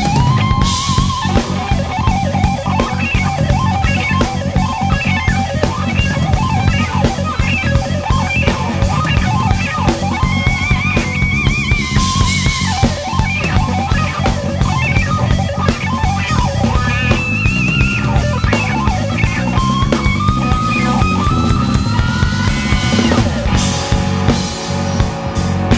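Instrumental rock trio playing live: electric guitar lead lines with bends and slides over drum kit and bass guitar. Cymbal crashes ring out near the start, midway and near the end.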